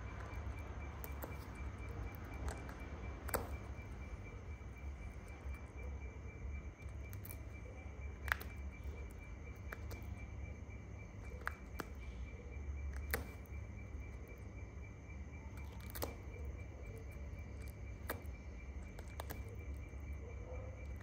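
A steady, high, pulsing insect trill over a constant low hum, with a sharp click every few seconds.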